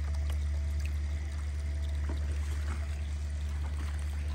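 Water sloshing and trickling as a plastic gold pan is worked in a tub of muddy water, with faint splashes, over a steady low rumble.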